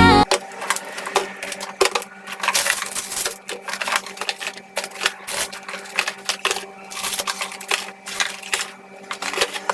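Irregular clicks, knocks and clatter of household items being handled and set down, over a faint steady low hum.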